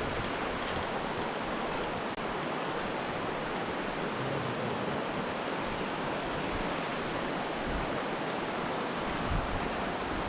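Steady rush of a fast, white-water river.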